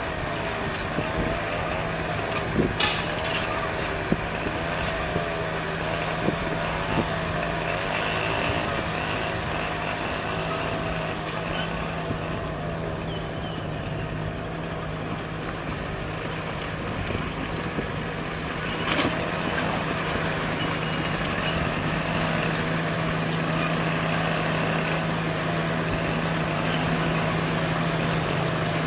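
Bulldozer's diesel engine running steadily, with a few sharp metallic knocks, the clearest about 3 seconds in and about 19 seconds in.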